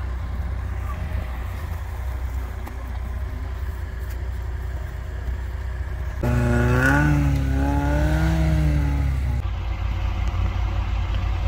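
Car on the move, a steady low rumble of engine and road noise. About six seconds in, a louder pitched drone rises and falls for about three seconds, then drops back to the rumble.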